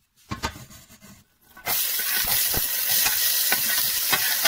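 A wooden spoon scrapes a few times in a stainless steel pot of hot duck fat. Then chopped onion and garlic hit the fat, with a sudden loud sizzle about a second and a half in that carries on steadily as they start to fry.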